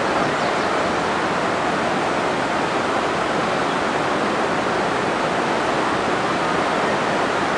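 Steady rush of a rocky mountain river's rapids, an even, unbroken noise of water.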